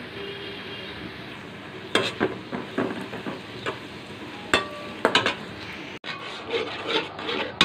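A metal spatula stirring and scraping fried onions against an aluminium pan over a steady sizzle of frying, with a cluster of sharp scrapes and clinks from about two seconds in, one of them ringing briefly. Near the end a ladle clatters in the pot as a masala gravy is stirred.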